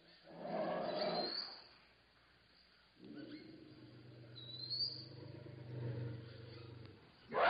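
Elephant calling: a short, noisy blast about half a second in, then a long, low, steady call from about three seconds in. A few faint rising bird chirps sound behind it.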